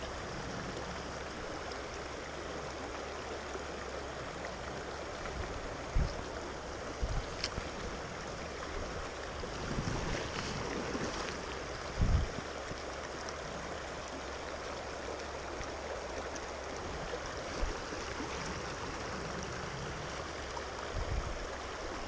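Shallow mountain river running over a cobble bed, a steady rush of water. A few dull low thumps close by break through it, the loudest two about a quarter and halfway through.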